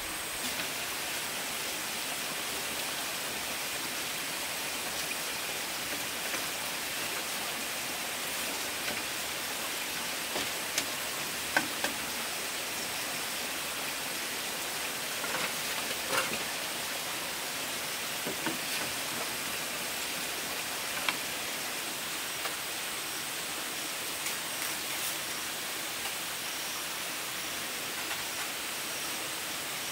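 Steady hiss of outdoor forest ambience with a faint high whine. A few scattered light clicks and taps come in the middle, the sharpest about eleven and sixteen seconds in.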